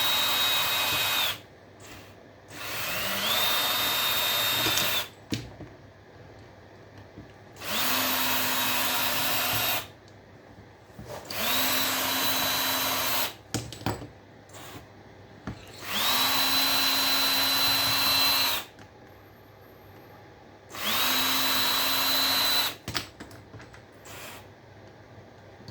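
Power drill-driver with a flathead bit backing out small slotted screws. It runs in six short spells of about two seconds each, its motor whine rising briefly as each spell starts, with clicks of the bit and screws between spells.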